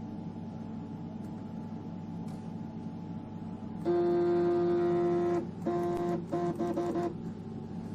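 Stepper motor of an EMCO Compact 5 lathe jogging the tool: a steady pitched whine for about a second and a half midway, then several short whines of the same pitch as it moves in small jog steps, over a steady low hum.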